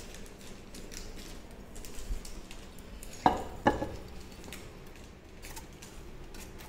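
Stainless steel drum of a three-stone wet grinder being handled and moved off its base, with light rubbing and two sharp knocks about halfway through.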